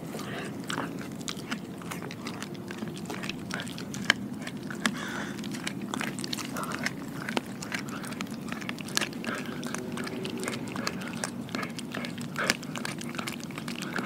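A dog chewing and biting on a piece of pork skin, a run of short clicks and crunches, with a couple of sharper, louder snaps about four seconds in and again near the end.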